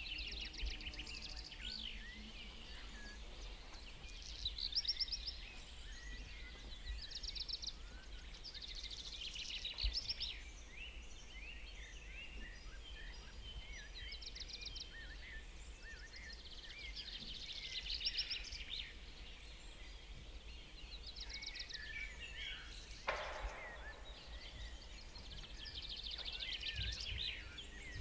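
Morning forest chorus of several songbirds calling at once: overlapping chirps, whistles and rapid trills over a low steady rumble, with a brief burst of noise about three-quarters of the way through.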